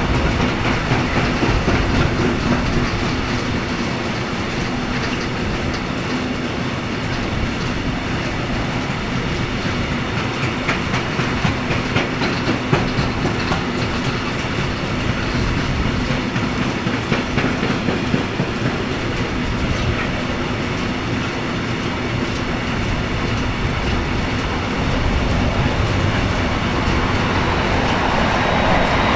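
Heavy freight train of loaded open wagons rolling past, the wheels clattering steadily over the rail joints, getting somewhat louder near the end.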